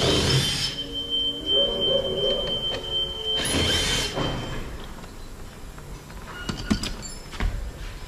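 Two short bursts of a power tool, about three and a half seconds apart, backing out the screws that hold a pickup's door trim panel. A few light clicks follow near the end.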